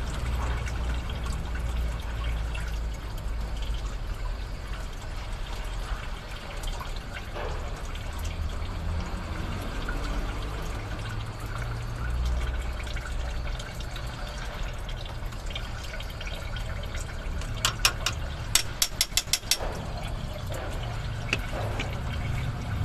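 Hand-tool work on the hose fittings of a truck's power-steering pump: light handling noise over a steady low rumble, and a quick run of about eight sharp clicks about three quarters of the way through.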